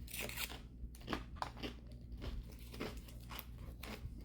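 Close crunching and chewing of a crisp fortune cookie, with irregular sharp cracks about every third of a second.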